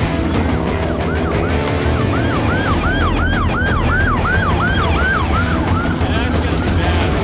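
Police SUV siren on a fast yelp, a quick rising-and-falling wail repeating about two and a half times a second. It grows louder toward the middle as the car passes, then fades. A low engine rumble runs underneath.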